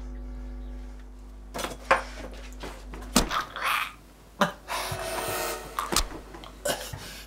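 A low sustained music drone that stops about a second and a half in, followed by a run of sharp thuds and rough scuffling noises, the sounds of a struggle with a man held down on the floor, a strap around his neck.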